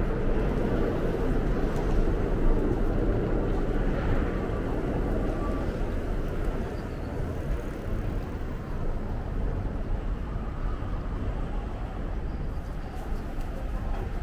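City street ambience: a steady rumble of traffic from passing cars, somewhat louder in the first few seconds and easing after.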